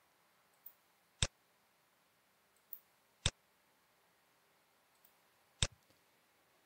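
Computer mouse clicking: three sharp, short clicks about two seconds apart, the first two each preceded by a fainter click, with near silence between.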